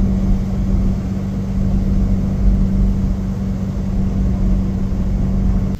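Road noise heard from inside a moving car's cabin: a steady low rumble from the tyres and engine, with a steady drone underneath.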